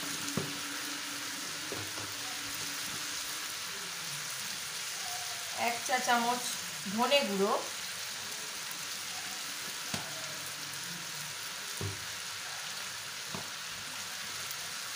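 Chicken and potato filling frying in an oiled pan with a steady sizzle, a metal spatula knocking against the pan a few times.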